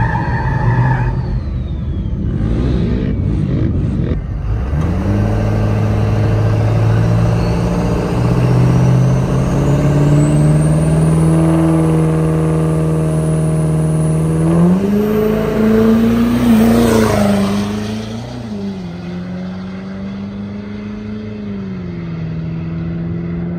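Turbodiesel V8 Duramax pickup on a drag-strip starting line, its engine held at steady revs while a turbo whine climbs in pitch, then revving up as it launches about fifteen seconds in. A lower steady engine note carries on after the launch.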